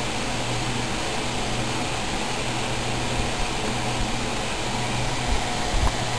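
Steady background machine hum and hiss, with a few low thumps near the end.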